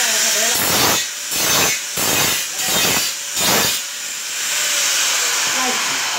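Handheld angle grinder running at speed with its disc biting into a ceramic floor tile in about five short passes, each a surge of harsher grinding, then spinning on with a steady high whine. The grinder is cutting a round hole in the tile.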